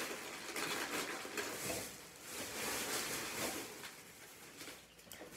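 Rustling and crinkling of snack bags and wrappers being handled, an uneven soft noise that fades a little near the end.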